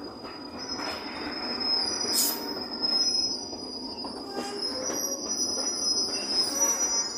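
Steel train wheels squealing on the rails with a steady high-pitched note over the low rumble of rolling stock moving slowly past.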